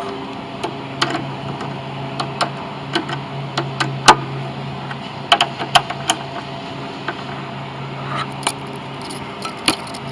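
Irregular metal clicks and clinks of a hand wrench and bolts being worked on a mower's underside, with a few louder knocks, over a steady low hum.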